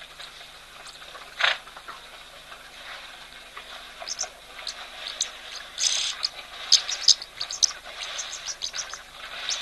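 Outdoor ambience at a waterhole: small birds giving many short, high-pitched chirps over a steady background hiss. There is one sharp call about a second and a half in, and a busier run of chirps through the second half.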